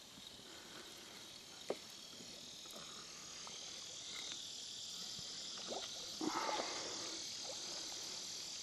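Faint, steady, high-pitched chorus of calling animals that grows slowly louder, with a sharp click early on and a few light knocks about six seconds in.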